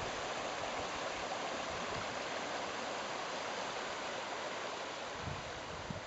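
Shallow creek rushing over rock ledges, a steady hiss of moving water. Near the end, wind starts buffeting the microphone with low rumbles.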